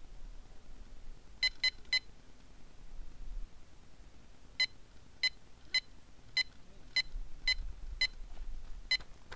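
Electronic carp bite alarm on a rod pod giving single beeps: three in quick succession about a second and a half in, then eight more at uneven gaps of half a second to a second. This is a fish taking line on the rod.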